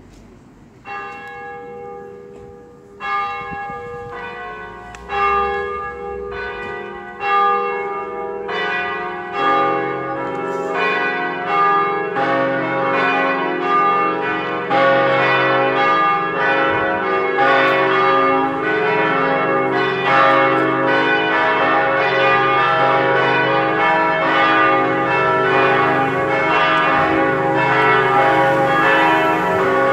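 Four swinging church tower bells, tuned C-sharp, E, F-sharp and G-sharp, starting a full peal. The first strike comes about a second in and further strikes follow roughly every two seconds. The strikes grow louder and closer together as the bells swing up, until from about halfway all the bells ring together in a continuous, overlapping clangour.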